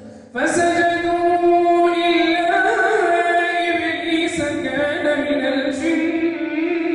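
Qur'an recitation by a solo reciter in melodic tajweed style, one long drawn-out phrase with ornamented turns of pitch. It starts after a brief breath pause about half a second in.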